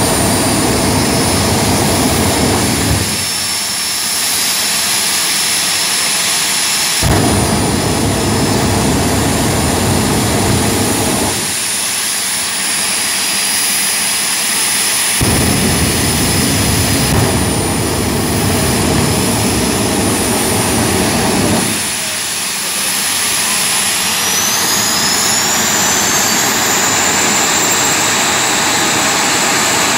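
Jet-powered drag cars' turbine engines running at the start line: a steady high turbine whine with three long, heavy afterburner blasts of several seconds each, flame and smoke pouring from the cars. Near the end the turbine whine rises in pitch as an engine spools up.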